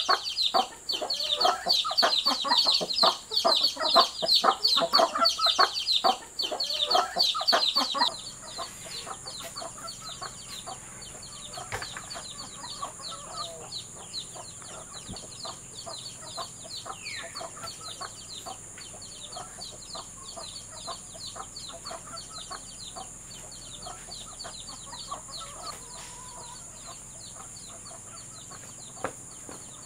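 Chickens clucking loudly and rapidly for about the first eight seconds. After that the sound drops to quieter countryside ambience, with a steady high-pitched drone and occasional faint bird calls.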